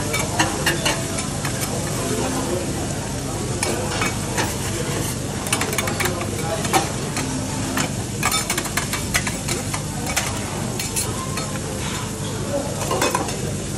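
Food sizzling on a teppanyaki steel griddle while the chef's metal spatulas scrape across the hotplate and tap against it in frequent sharp clicks.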